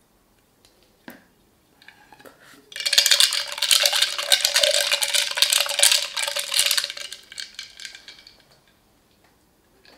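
A straw stirring coffee in a glass, rattling and clinking against the glass for about four seconds, then fading away.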